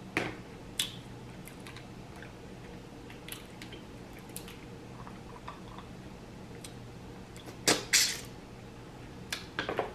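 Close-miked eating of steamed mussels: scattered small clicks and wet mouth sounds as the shells are handled and the meat is chewed. Two louder sharp sounds come close together near the end, as a mussel is taken from its shell at the mouth.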